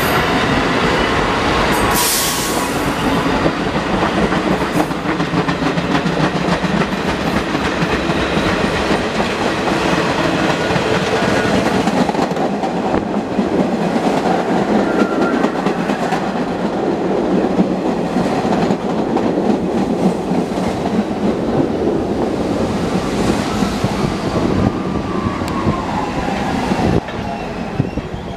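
R68 subway train pulling into the station: a steady rumble with the clatter of wheels over rail joints, and a brief sharp high burst of noise about two seconds in. Faint squeal comes in late as it brakes, and the noise drops near the end as it comes to a stop.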